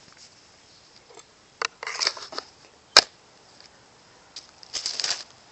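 Habilis Bushtool's 1095 carbon-steel blade drawn across a sharpening stone in two short scraping strokes, with a single sharp click between them.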